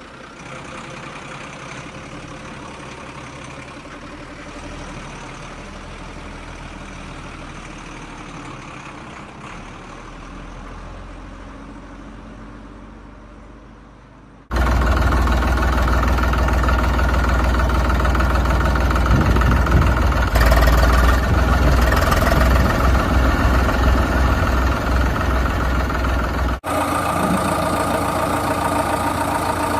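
Tractor engine running steadily, quieter for the first half, then much louder and deeper from about halfway on, with a brief break near the end.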